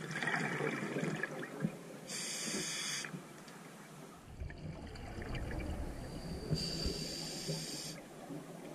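Scuba diver breathing through a regulator underwater: two inhalations hiss through the demand valve, about four seconds apart, with a rumbling rush of exhaled bubbles before and between them.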